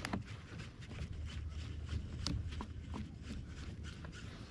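Faint low rumble of wind and water on the microphone, with scattered light clicks and taps from the kayak and fishing gear as the rod is worked.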